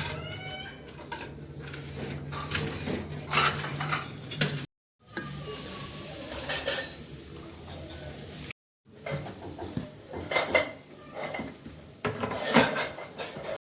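Kitchen utensils clinking, tapping and scraping against dishes in irregular short knocks, broken twice by brief dropouts.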